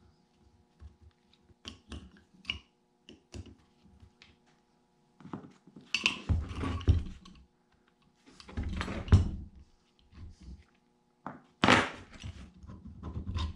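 Scattered clicks and knocks of a Farmall H battery-ignition distributor being handled and taken apart on a workbench, with louder thunks of metal parts about six, nine and twelve seconds in.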